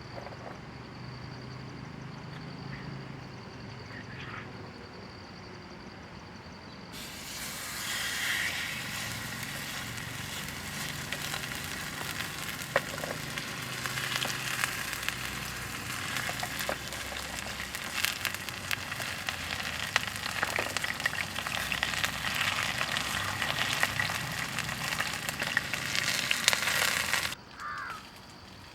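Food sizzling and crackling in a hot pan, starting suddenly about seven seconds in and cutting off sharply near the end. Before it, only a faint steady high-pitched tone.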